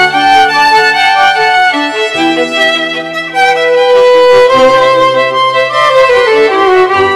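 Background instrumental music with long held notes that change every second or two.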